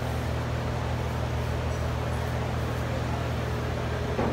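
Steady low mechanical hum, like large ventilation fans running. A brief wavering call or voice comes just before the end.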